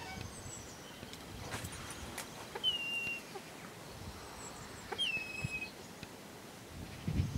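Two short whistled bird calls about two and a half seconds apart, each dipping slightly in pitch and then held for a moment, over a faint outdoor background with a few light clicks.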